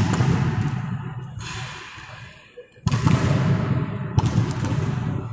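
Volleyball spiking practice in a large hall: loud, sharp smacks of hand on ball and ball on floor, each ringing on in the hall for a second or two. One comes at the start, another about three seconds in, and a smaller crack a little after four seconds.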